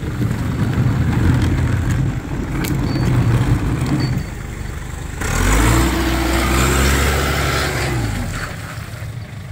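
Cat forklift engine running under load as it pushes a bin tied to its forks through standing water. About five seconds in the engine revs up and a loud rush of splashing water joins it for a few seconds, then both fade as the forklift moves off.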